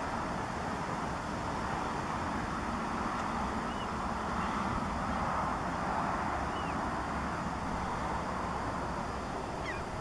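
Steady outdoor background noise, a broad even rush with a low rumble. A few faint, short, high bird chirps come through it, about four and seven seconds in and again just before the end.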